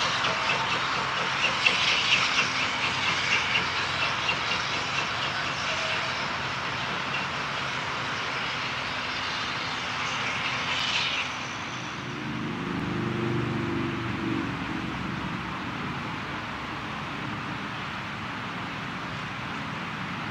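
Colorado & Southern 2-6-0 steam locomotive No. 9 working through the trees, with rhythmic exhaust chuffs and steam hiss that fade over the first ten seconds or so. The sound cuts off suddenly about eleven seconds in, and a lower, steady rumble with a faint hum follows.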